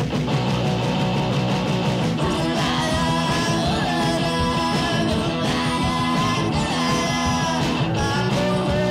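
Garage-punk rock song with electric guitar, and a singing voice that comes in about two and a half seconds in.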